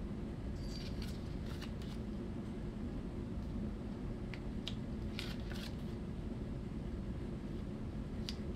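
Pages of a small paper booklet being leafed through by hand: several short, crisp papery rustles, in a cluster about a second in, another around five seconds in and one near the end, over a steady low hum of room noise.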